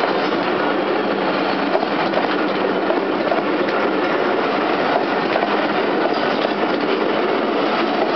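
Pakistan Railways passenger coaches passing at speed close by: a loud, steady rush of steel wheels running on the rails.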